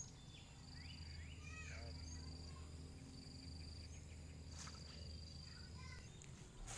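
Insect trilling in repeated high-pitched stretches of about a second each, over a low steady hum, with a sharp click near the end.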